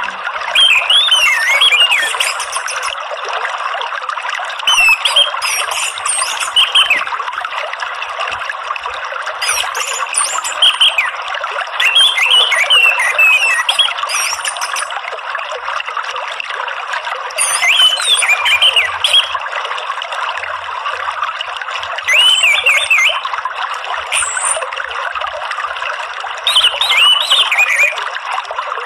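Orange-headed thrush singing short, quickly varying phrases every few seconds over a steady sound of running water. This is a bird-keeper's therapy and lure track, meant to set a stressed or silent caged anis merah singing.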